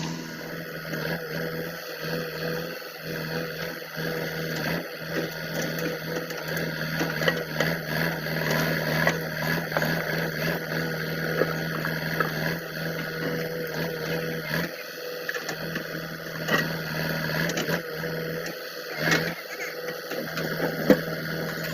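JCB 3DX backhoe loader's diesel engine running steadily under work, with frequent short knocks and clatter over it.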